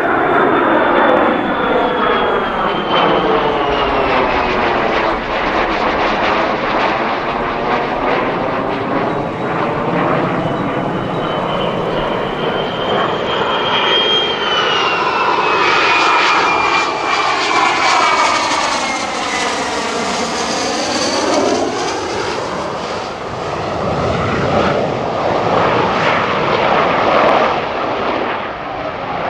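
USAF Lockheed Martin F-35A jets, each with a single Pratt & Whitney F135 turbofan, flying past overhead and coming round to land. The result is loud, continuous jet noise with a swirling, phasing quality as they pass. A high whine slides down in pitch near the start and again around the middle.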